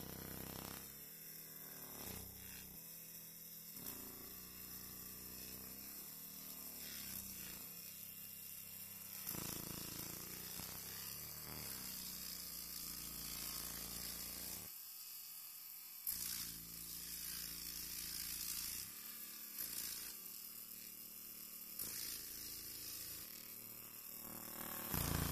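Handheld laser marking machine engraving a code into a tyre's rubber sidewall: a faint, steady buzzing hiss, mostly high-pitched, that flickers in level as the laser burns the rubber.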